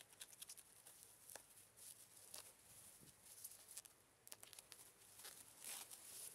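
Faint crinkling and crackling of plastic bubble wrap as it is handled and pulled off a box, with many small scattered clicks.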